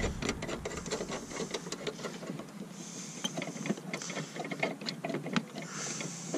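Screw being tightened by hand with an Allen key into a round LED tail light's mounting bracket: a quick, uneven run of small clicks and ticks as the screw catches and turns.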